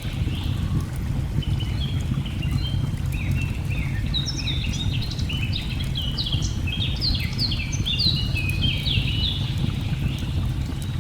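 A songbird sings a quick run of short, sliding chirps from about a second in until near the end, busiest in the middle. Underneath runs the steady low rush of a waterfall, with faint fire crackles.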